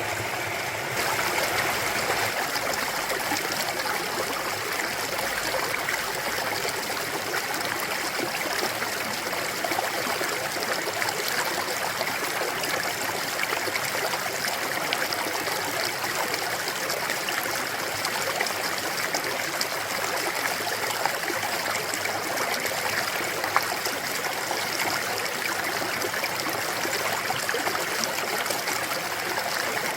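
Clear mountain stream flowing and trickling over rocks: a steady rush of water that steps up slightly about a second in.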